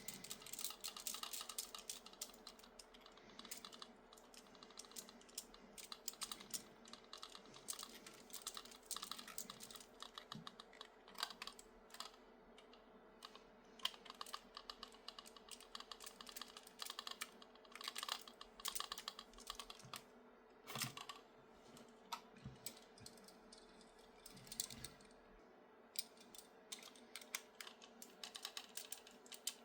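Faint, irregular small clicks and taps of little plastic parts, screws and a hand tool being handled during bench assembly of a 3D-printed RC car chassis, over a faint steady hum.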